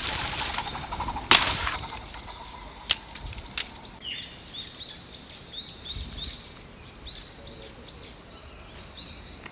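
Knife blade striking wood: one sharp chop about a second in, then two lighter knocks. Small birds chirp repeatedly through the rest.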